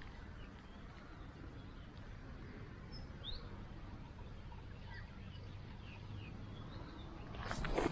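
A few faint, short bird chirps over low steady outdoor background noise, with loud rustling starting near the end.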